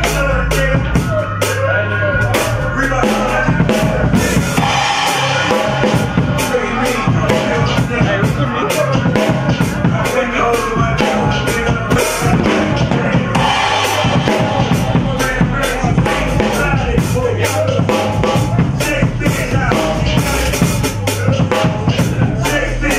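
Drum kit played with wooden sticks in a steady, busy rhythm: bass drum, snare and cymbals struck continuously.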